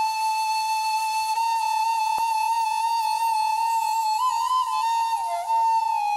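Bamboo flute playing a slow solo line, mostly one long held note, with quick ornamented turns and a brief dip in pitch a little past the middle, as the introduction to a Baul song.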